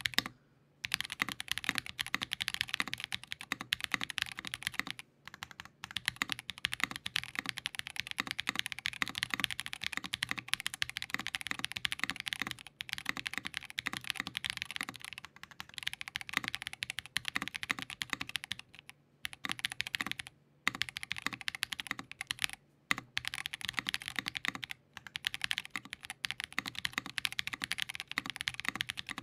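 Fast, continuous typing on a KBDFans Tofu60 2.0 60% mechanical keyboard, gasket-mounted with an aluminium plate, plate foam only and lubed Built by Nim linear switches: a steady stream of keystrokes, broken by brief pauses about five seconds in and around twenty seconds in.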